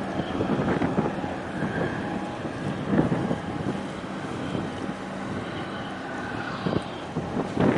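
Wind buffeting the microphone over choppy water, in uneven gusts, with a faint steady engine drone from the ship and tugboat underneath.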